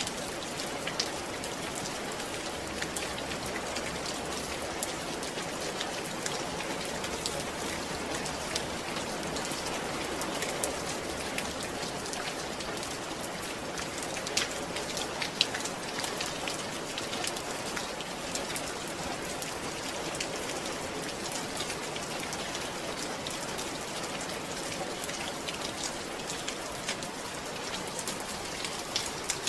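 Steady rain falling, a continuous hiss with many separate drops ticking on a surface.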